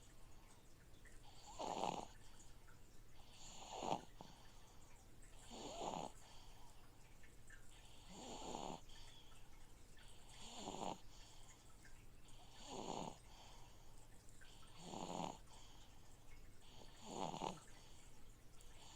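Slow, regular snoring, one snore about every two seconds, eight in all, each with a breathy hiss. A steady low hum from a fish-tank filter runs underneath.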